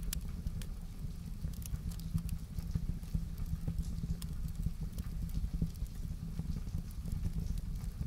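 Wood fire in a fireplace crackling, with irregular sharp pops and snaps over a steady low rumble of the flames.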